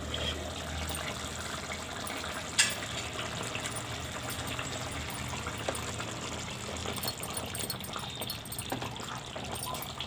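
Fish curry bubbling as it simmers in a metal pot on a gas stove: a steady bubbling hiss. A single sharp metal clink about two and a half seconds in.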